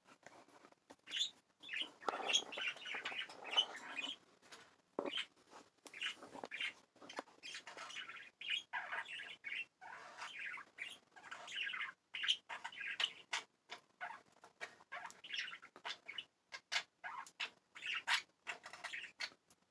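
Pet budgerigars chirping and chattering in a busy warble, mixed with many sharp clicks and taps.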